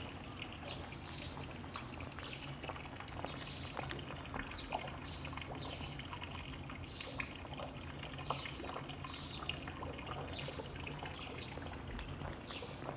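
Water trickling and splashing steadily, with a few sharp ticks now and then.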